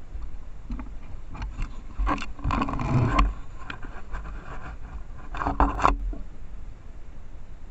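Raccoons wading and dabbling in shallow water: two bursts of splashing and sloshing, one about two seconds in that peaks near three seconds, and a shorter one near six seconds, over the steady hiss of a trail camera's microphone.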